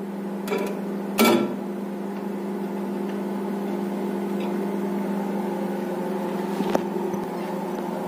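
Preheated IFB convection microwave oven humming steadily with its door open. A metal baking tray clinks onto the oven's wire rack about a second in, with lighter ticks just before it and near the end.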